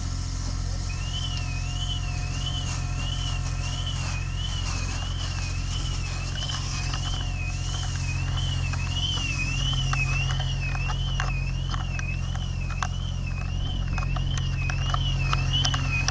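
Steady low hum of a running engine under a hose jet spraying a car fire, with an electronic alarm warbling up and down about twice a second from about a second in. Sharp pops and crackles come through from about midway.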